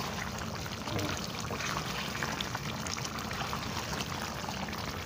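Chicken wings simmering in curry sauce in a pot, a steady bubbling hiss, with occasional light knocks of a spatula stirring the pot.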